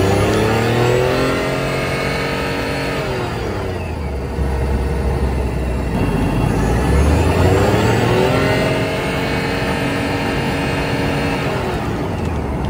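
Nissan Serena e-POWER's 1.4-litre three-cylinder engine running as a generator under acceleration, recorded in the engine bay, over the whine of the electric drive. The pitch rises, drops about three and a half seconds in, climbs again around seven seconds, then holds steady before easing off near the end.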